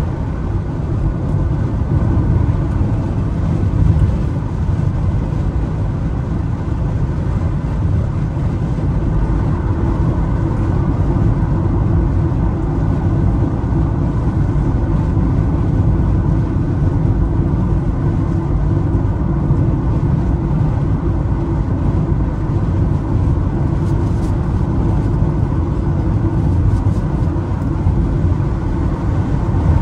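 Steady rumble of a road vehicle in motion, engine and tyre noise heard from inside, holding an even level throughout.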